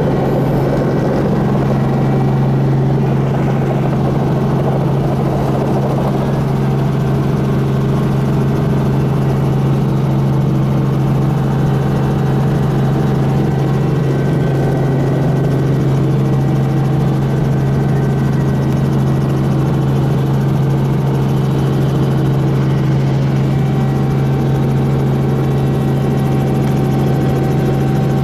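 A helicopter running steadily, a constant low drone that holds an even pitch and level.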